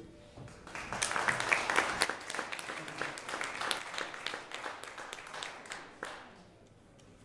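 Small audience clapping at the end of a song, starting about a second in and fading out near the end.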